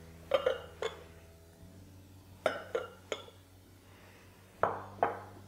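Glass lemon reamer clinking against the glass measuring jug it sits on while lemon is pressed on it and it is lifted off: sharp glass clinks in three small groups, about seven in all.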